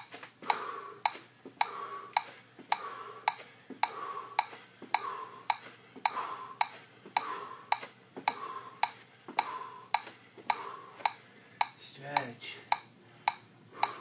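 Metronome ticking a steady beat, a little under two ticks a second, pacing a stair workout.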